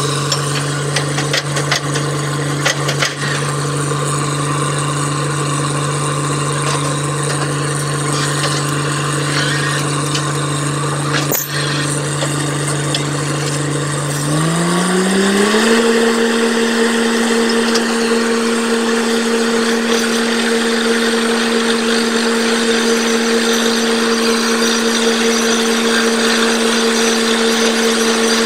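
Truck-mounted borewell drilling rig's engine running steadily, with a few knocks in the first half. About halfway through, the engine speeds up: its pitch rises over a second or so and then holds steady at the higher speed.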